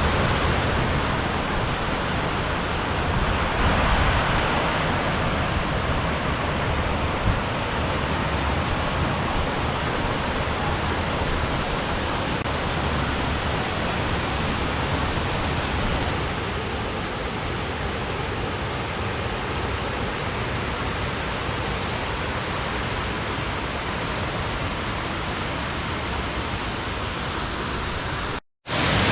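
Water from a waterfall rushing and splashing in a steady, even roar.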